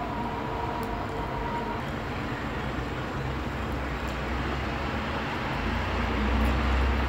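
Steady traffic noise, with a low rumble that builds about five and a half seconds in like a heavy vehicle going by. A faint high steady tone fades out about two seconds in.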